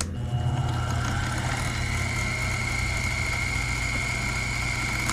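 Sherline CNC mill's spindle motor running steadily at about 2700 RPM, a low hum under a steady high whine, with a click near the start.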